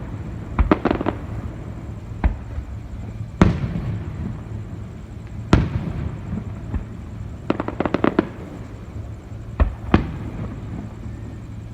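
Aerial fireworks bursting: single heavy booms every couple of seconds, with two clusters of rapid crackling pops, about a second in and again about eight seconds in.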